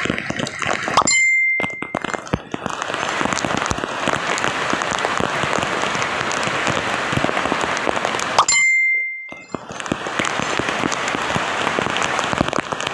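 Heavy rain pattering steadily. Twice it is broken by a short high beep followed by about a second of dropout.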